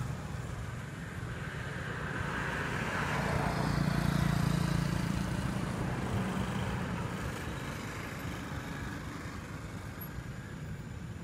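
Road traffic, cars and motorbikes passing, one vehicle growing louder to a peak about four seconds in and then fading.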